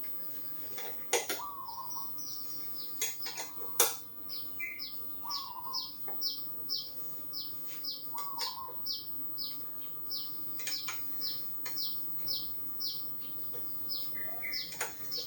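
Small birds calling: a steady run of short, falling chirps about two a second, with a lower curling call every few seconds. A few sharp knocks in the first four seconds are the loudest sounds.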